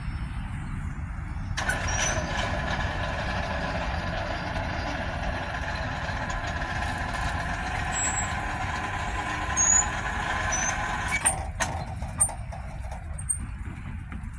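Train rolling by over a steady low rumble. A hissing noise with a high whine in it starts suddenly about a second and a half in and cuts off about eleven seconds in.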